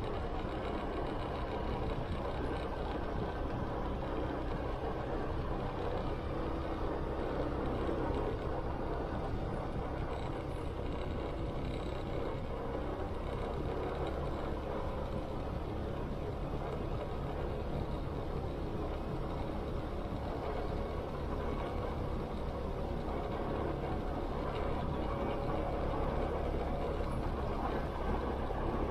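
Motorcycle engine running steadily at cruising speed, mixed with wind and road noise as heard from the rider's seat.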